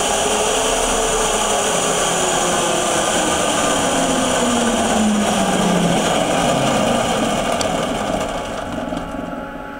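Electric drive motor and chain of a Honda CBR600 EV conversion spinning the raised rear wheel after a throttle blip, its whine falling steadily in pitch as the wheel coasts down, with a steady high hum above it. The sound grows quieter near the end.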